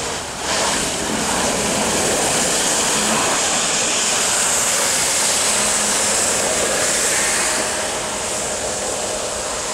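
Battery-powered jet pump of a DIY jet board running at full power: a loud, steady rush of water jet and spray with a faint motor whine. It comes up to full strength about half a second in and eases off a little near the end as the board pulls away.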